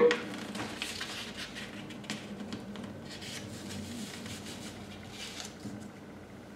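Faint rustling and light taps of sheets of paper being handled and laid down, over a low steady hum; it grows quieter near the end.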